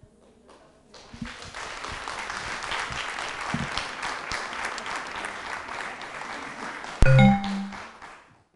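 Audience applauding, starting about a second in and dying away near the end. About seven seconds in there is a sudden loud thump followed by a short pitched tone, the loudest moment.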